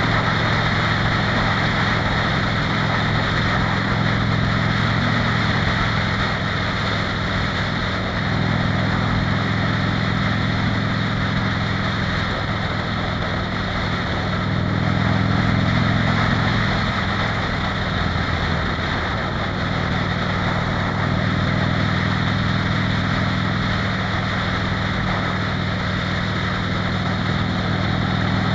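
Harley-Davidson V-twin motorcycle engine running at highway cruising speed, heard from the rider's bike, with steady wind and road rush over it. The engine note shifts a few times partway through as the throttle changes.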